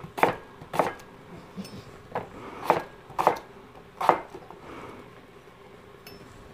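Knife chopping small potatoes on a cutting board, a handful of irregular strikes in the first four seconds, then quieter.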